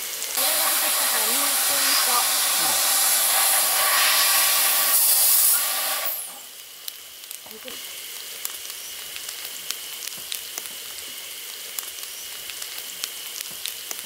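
Marbled beef steaks sizzling on an Abien Magic Grill electric griddle: a loud, dense sizzle for about the first six seconds, then suddenly quieter, a steady sizzle with small crackles and spits of fat as sliced garlic goes onto the plate.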